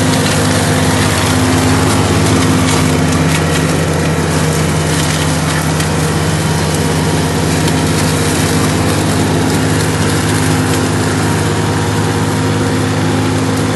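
Ditch Witch SK600 mini skid steer's engine running steadily under load as its flail mower attachment chops through vegetation, with scattered sharp cracks of woody material being shredded.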